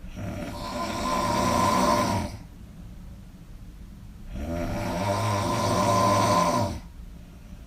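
A person snoring loudly: two long snores of about two seconds each, each growing louder and then stopping abruptly, with a quieter pause between them.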